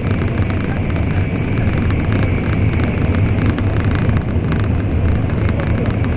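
Steady running noise inside the passenger cabin of an N700 series Shinkansen under way: a constant low rumble with rolling and air noise.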